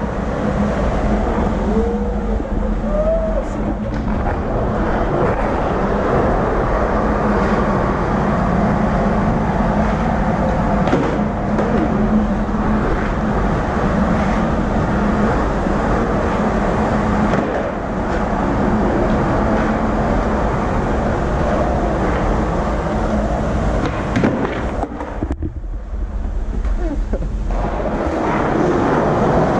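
Skateboard wheels rolling on a smooth hard hallway floor: a steady rumble with a low hum, broken by a few sharp clacks of the board. The rolling drops away for a couple of seconds near the end.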